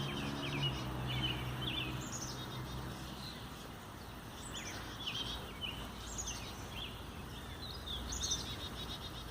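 Small birds chirping repeatedly: short high calls, some dropping quickly in pitch, every second or two.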